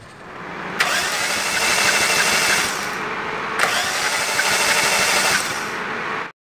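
Starter motor cranking a four-cylinder engine with its spark plugs removed, in two bursts of about two seconds each. The cranking blows leftover carburettor cleaner and loosened carbon out of the open plug holes, clearing the combustion chambers after a decarbonising soak.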